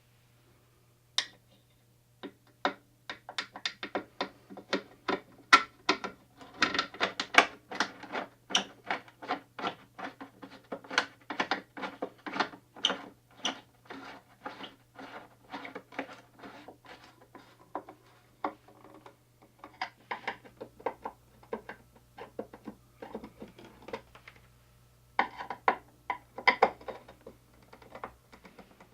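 A long run of sharp clicks and ticks from hand tools working on the amplifier, several a second at first, then sparser with a louder cluster near the end, over a faint steady low hum.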